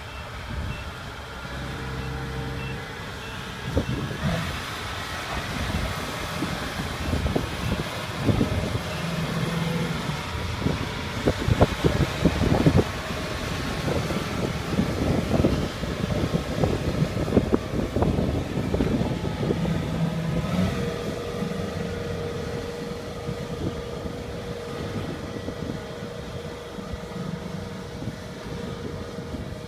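Kubota crawler rice combine harvester's diesel engine running as it crawls down into a flooded rice field, with irregular clanking and rattling from the tracks and body, most frequent in the middle. The sound gets quieter towards the end as the machine moves away.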